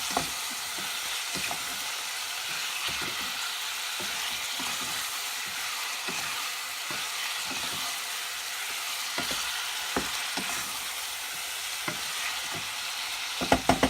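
Food frying in a pan with a steady sizzle, and a utensil stirring it, knocking against the pan now and then. A quick run of louder clatter comes near the end.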